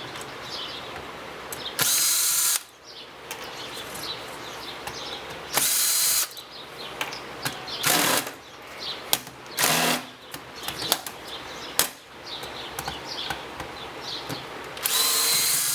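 Cordless drill-driver spinning in five short bursts, backing screws out of a ceiling fan motor's cover, with small clicks and knocks of metal between the bursts.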